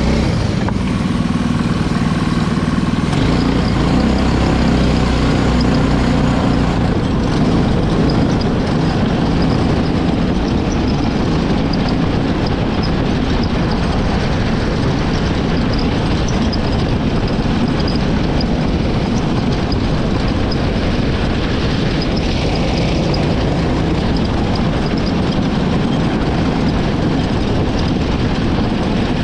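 Racing kart engine running continuously at speed, recorded from the kart itself.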